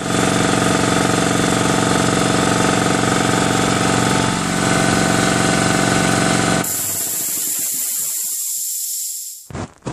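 Ingersoll Rand TS4N5 two-stage air compressor, a 5-horsepower electric motor driving its pump, running loud and steady. About two-thirds of the way through the pump stops abruptly and a high hiss of released air follows, fading out over a few seconds, typical of the unloader valve venting as the compressor shuts off.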